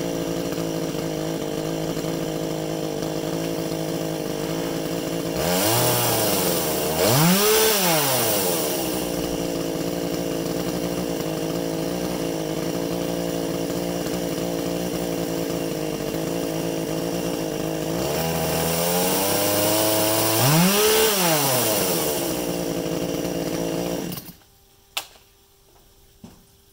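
Ryobi 20-inch gas chainsaw's two-stroke engine idling warm, revved up twice and dropping back to idle each time. The engine cuts off suddenly near the end, leaving a few faint clicks.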